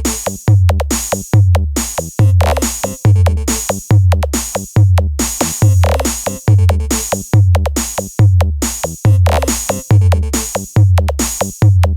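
Electronic DJ remix music: a drum-machine beat with heavy bass kicks that slide down in pitch, repeating at a quick steady pulse with brief stuttering cut-outs.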